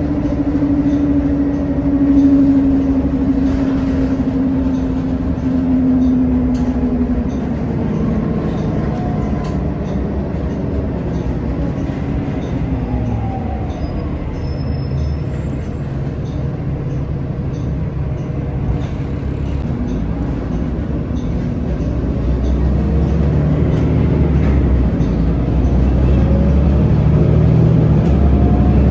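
City transit bus's engine and drivetrain running, with road noise, heard from inside the passenger cabin. A whine slowly falls in pitch over the first several seconds, and the low rumble grows louder toward the end.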